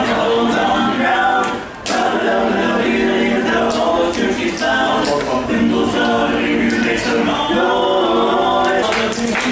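A group of voices singing a cappella in harmony, with a brief break a little under two seconds in.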